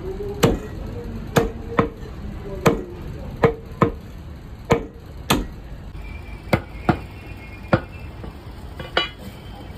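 Chicken being chopped into small pieces: about a dozen sharp, irregularly spaced chops of a blade through meat and bone onto a cutting block.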